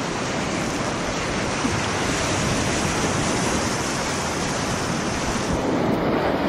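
Steady rush of whitewater rapids on a grade 3/4 river section around a kayak, with some wind on the microphone.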